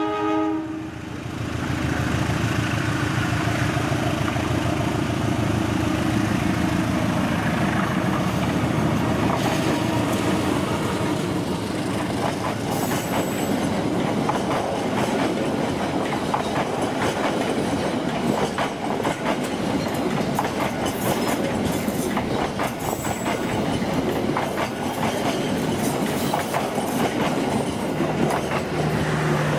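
Passenger train running through a station without stopping, its coaches' wheels clattering over rail joints and points in a steady, dense rush.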